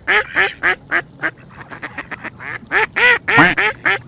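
Duck quacking in a rapid series of short, nasal calls: one run of quacks in the first second or so, then quieter calls, then another quick run about three seconds in.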